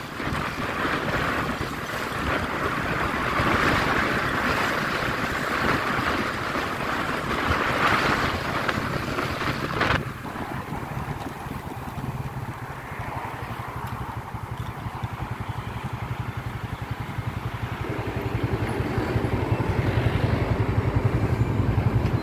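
Wind rushing over the microphone on a moving motorcycle, cutting off suddenly about ten seconds in. After that the motorcycle's engine runs with a steady low hum, growing louder near the end.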